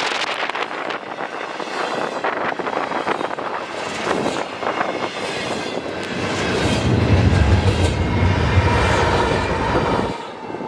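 Freight train cars rolling past with clattering wheels. A diesel locomotive's low engine rumble swells in about two-thirds of the way through, then the sound cuts off abruptly just before the end.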